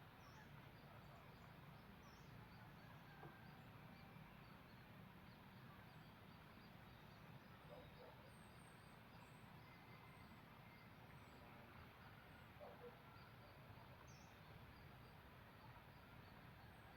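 Near silence: faint outdoor background hiss and low hum, with scattered faint high chirps of small birds.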